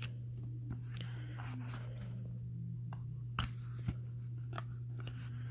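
Plastic lash cases and a cardboard box being handled: faint rustling and scraping, with two sharp clicks a little past three seconds in and again half a second later, over a steady low hum.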